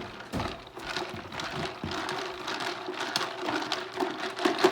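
A plastic container full of turkey in brine being shaken and handled: irregular knocks and rattles, with a faint steady hum behind.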